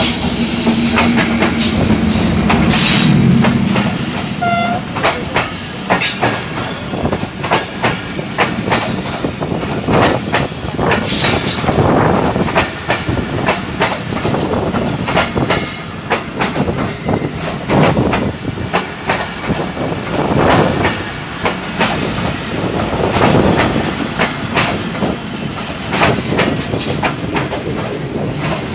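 A Pakistan Railways diesel locomotive passing close by at low speed with a steady engine hum, then its passenger coaches rolling past on the adjacent track, wheels clacking over the rail joints in bunches as each bogie goes by. A brief high tone sounds about four and a half seconds in.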